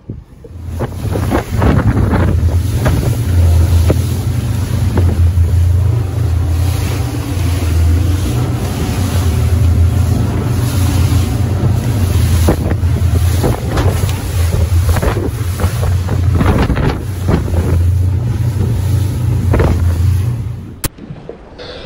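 Motorboat running at speed offshore: a steady low engine drone under rushing water and spray along the hull, with wind buffeting the microphone. It cuts off suddenly about a second before the end.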